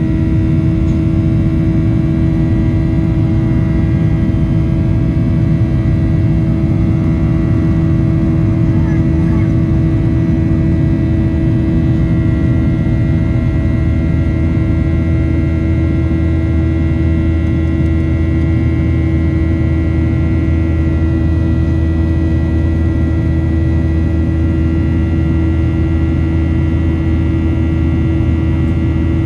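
Cabin noise inside a Boeing 737-800 in flight: steady rumble from its CFM56-7B turbofan engines and the rushing air, with a few steady hum tones on top. About halfway through, the low rumble drops a little deeper.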